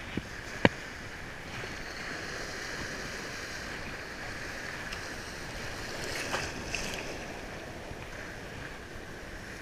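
Ocean surf washing steadily around a wading angler, with wind on the microphone and one sharp knock less than a second in.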